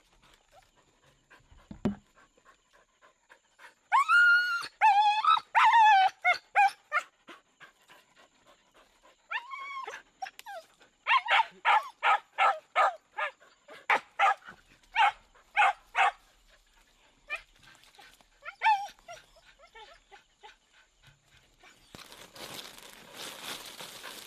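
An animal calling: a few drawn-out calls that bend up and down in pitch, then a quick run of short, sharp calls at about two to three a second, and a couple more drawn-out calls later. A steady hiss comes up near the end.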